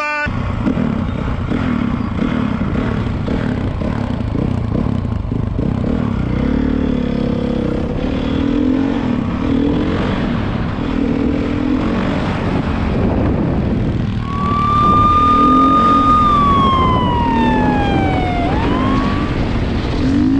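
Dirt bike engine revving up and down repeatedly as the rider accelerates, with heavy wind noise on a helmet camera. About two-thirds in a siren joins, holding a high note, then falling and rising again.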